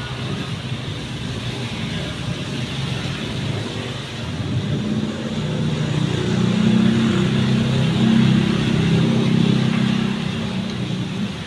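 A low engine hum that swells from about halfway through and eases off near the end.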